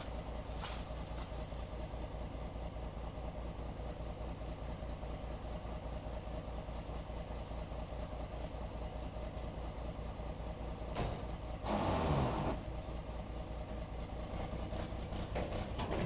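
Diesel truck engine idling with a steady, even low pulse. About twelve seconds in there is a brief louder noise that falls in pitch.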